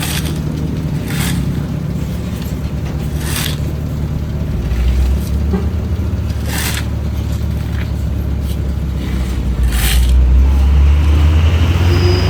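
A hand tool scrapes across the asphalt road surface in short strokes, about five at uneven gaps. Under it a heavy engine runs with a low rumble that swells twice, loudest near the end.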